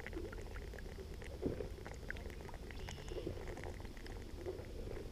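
A person chugging a bottle of beer in one go: faint, repeated gulping swallows.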